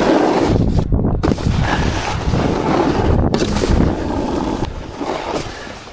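Wind buffeting the microphone of a helmet-style POV camera on a moving rider, a loud low rushing rumble with a few brief dropouts, about a second in and again after three seconds.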